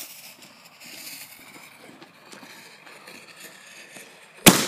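Firework going off: a faint hiss with light crackling, then near the end one sharp, loud bang that echoes briefly.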